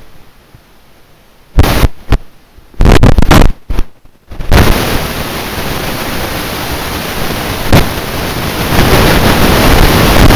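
Wind buffeting the camera's microphone: several loud blasts in the first few seconds, then a steady rushing that grows slightly louder toward the end.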